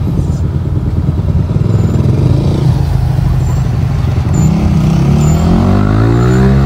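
Car engine and road noise heard from inside a moving taxi, the engine note rising over the last couple of seconds as it speeds up.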